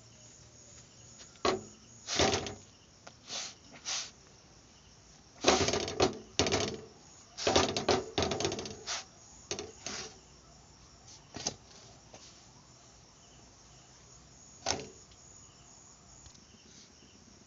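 Short scuffing and rubbing noises of a folded cloth being pressed and dabbed on a roti on a hot iron tava to puff it up, coming in bunches with quiet gaps, over a faint steady hiss.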